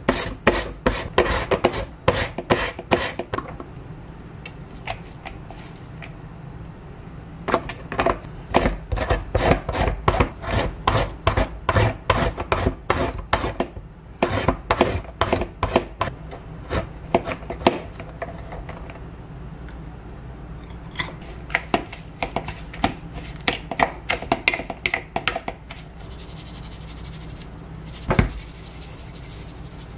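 Potato and carrot rubbed back and forth across the blades of a plastic julienne slicer, a run of rasping strokes about four or five a second, stopping and starting several times. A single knock near the end.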